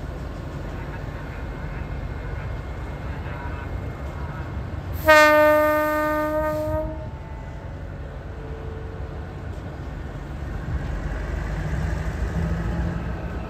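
Alstom diesel locomotive sounding its horn once, a steady single note of about two seconds, about five seconds in: the departure signal for the train. Under it the diesel engine runs with a low rumble that grows louder near the end as it takes up power.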